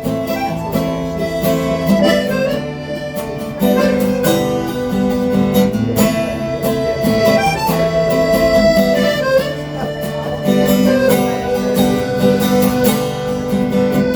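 Band playing an instrumental intro: strummed acoustic guitar chords under a harmonica carrying the melody in long held notes.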